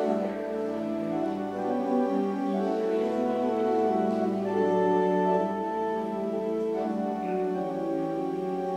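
Pipe organ playing a slow prelude of long, sustained chords that change every second or two.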